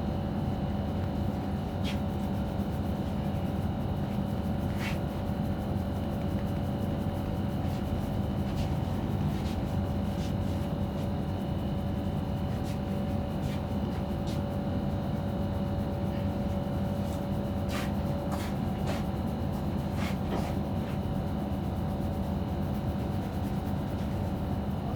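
A steady mechanical hum with several fixed tones, unchanging throughout, and a few faint scattered clicks.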